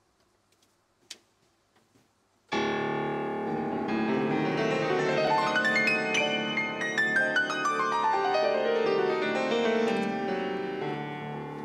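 Grand piano. After a near-silent start with one faint click, a loud chord is struck about two and a half seconds in and rings on, while a fast run of notes climbs high and then descends again.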